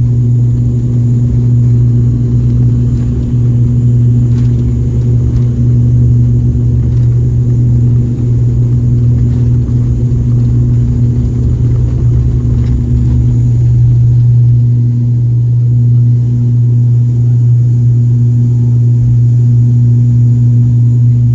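Jet airliner engines at takeoff thrust, heard from inside the passenger cabin: a loud, steady, low drone with a hum over it.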